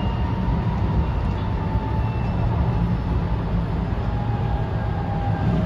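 JR West 223 series 2000-subseries electric train running, heard from inside a motor car fitted with a Hitachi IGBT inverter: a steady low wheel-and-rail rumble with faint motor whine tones above it. The tones drift slightly lower, and a new pair comes in about four seconds in.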